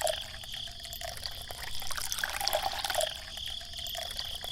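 Liquid trickling and dripping, with small uneven splashes.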